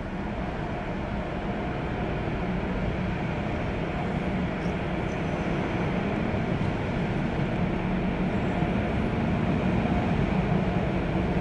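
Automatic tunnel car wash machinery running: a steady rumble and spray hiss from the spinning wash brushes and water jets, growing gradually louder as the car moves closer, heard from inside the car.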